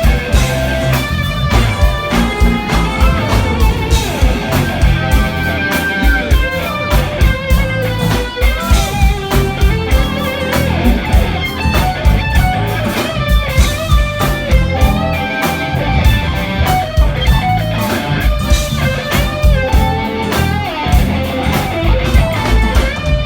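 Live funk band playing, with electric guitar to the fore over bass and drums.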